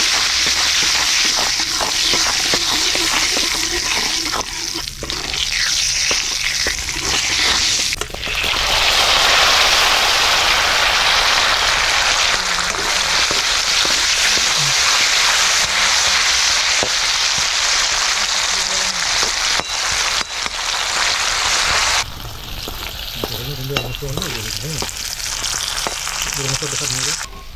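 Pork frying in hot oil in a pan for a curry, sizzling steadily while it is stirred, with scraping strokes in the first several seconds. The sizzle grows louder about eight seconds in and drops back about twenty-two seconds in.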